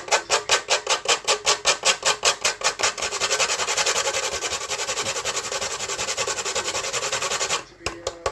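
Food being grated by hand on a kitchen grater: rhythmic rasping strokes about five a second, turning into quicker, denser scraping about three seconds in, and stopping shortly before the end.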